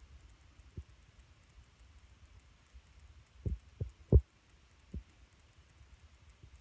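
Five dull low thumps, spaced unevenly, the loudest about four seconds in, over a faint low hum.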